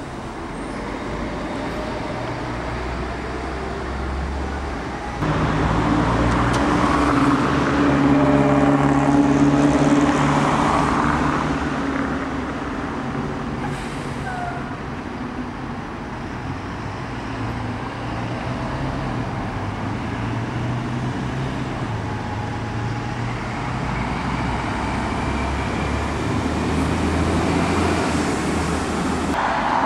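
Diesel bus engines running as buses pull away and pass, a low steady engine note over general traffic noise. The sound changes abruptly and grows louder about five seconds in.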